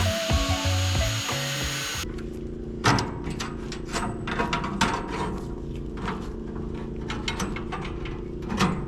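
Background music over the hiss of a saw cutting wood. The sawing cuts off abruptly about two seconds in, leaving the music with sharp clicks and knocks.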